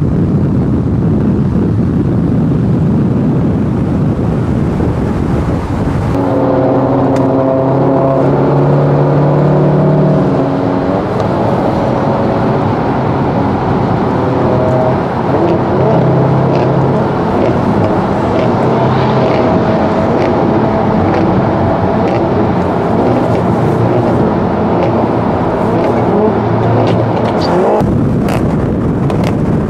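Cars driving at speed: wind and road rush for the first few seconds, then a steady engine drone that shifts in pitch. Near the end, sharp exhaust crackles come from a modified car spitting flames from its exhaust.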